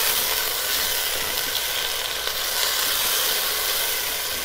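Onion and tomato masala sizzling and steaming in hot oil in a karahi, a couple of tablespoons of water just added, as it is stirred with a silicone spatula. A steady hiss.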